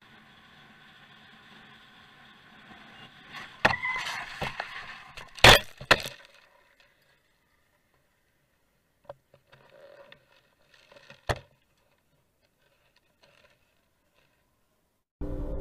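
Motorcycle crash heard from the bike's own camera. Faint road and wind noise gives way, about three and a half seconds in, to a run of hard impacts and clattering, the loudest about five and a half seconds in, as the camera is knocked loose onto the ground. After that there are only a few faint knocks.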